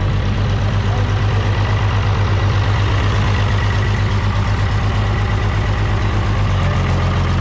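A 686 tractor's German diesel engine idling steadily with a fast, even low pulse.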